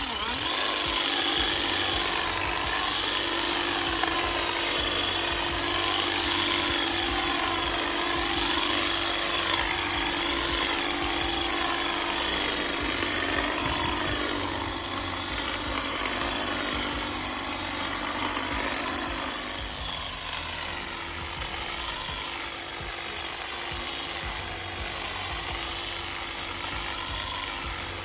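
Power hedge trimmer running steadily at a constant pitch, its sound wavering up and down as it works; the hum drops away for a moment about two-thirds through, then returns.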